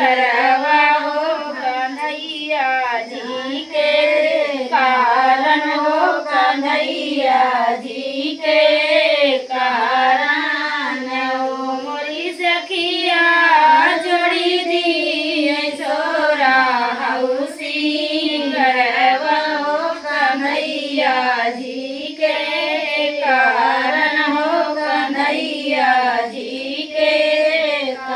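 Women singing a sohar, a north Indian folk song sung to celebrate a childbirth, with voices only and no instruments; the melody wavers and runs on without break.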